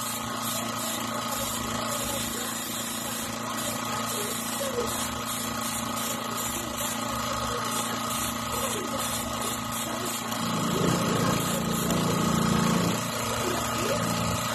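Small airbrush air compressor running with a steady hum, under the soft hiss of the airbrush spraying paint. The low hum swells louder for a few seconds past the middle.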